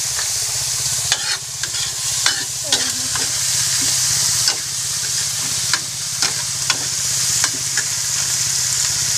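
Rice snails frying in hot oil and garlic, stirred in the pan: a steady sizzle broken by irregular scraping, clacking stirring strokes.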